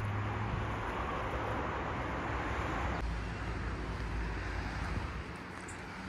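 Steady city traffic noise: an even hiss of passing vehicles over a low rumble. The background changes abruptly about halfway through.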